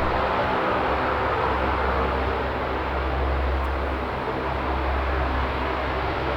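Lockheed C-130H Hercules's four Allison T56 turboprops running steadily as the aircraft taxis after landing: an even drone with a stack of propeller tones over a low hum.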